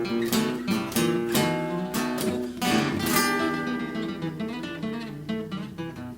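Guitar playing a blues accompaniment: strummed chords for the first few seconds, then quieter ringing notes that die away as the piece winds down.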